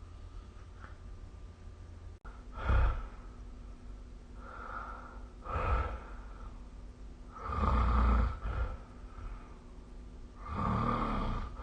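A sleeping person snoring: five rough, rasping breaths two to three seconds apart, the longest and loudest about eight seconds in and again near the end.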